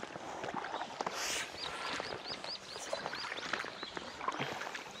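Oars of an inflatable rowing boat dipping and splashing in the water, with small knocks and clicks of the oars working in their oarlocks. In the middle a bird calls a quick run of about eight high chirps.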